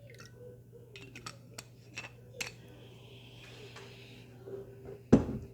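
Drink being mixed by hand: scattered clicks and clinks of a bottle and glass, a soft hiss like pouring in the middle, and one loud thud about five seconds in, as of a bottle set down. A low steady hum runs underneath.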